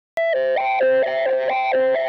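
Background music. After a brief silent gap, a new track starts with a click and goes into a repeating melody of short stepping notes at a steady level.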